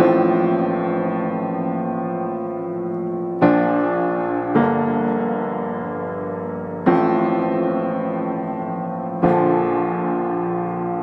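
Slow background piano music: sustained chords struck every two seconds or so and left to ring out.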